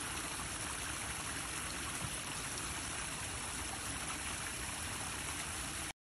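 Backyard pond waterfall, fed by a pump through a Jiffy bio filter, splashing steadily over rocks into the pond. It cuts off suddenly near the end.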